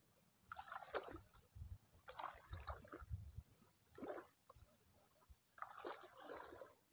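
Shallow muddy water sloshing and splashing in several short bursts as someone wades and works their hands through it.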